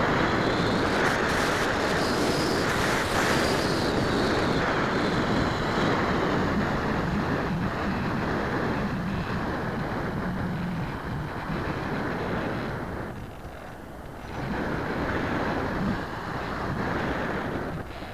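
Wind rushing over the onboard camera of a radio-controlled model airplane in flight. The rush swells and eases as the plane banks, dropping briefly about 13 seconds in, with a faint whine that slides in pitch during the first few seconds.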